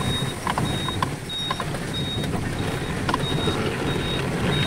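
Truck engine running as it drives over a rough dirt road, heard from inside the cab, with a few sharp knocks and rattles. A short high electronic beep repeats about one and a half times a second throughout.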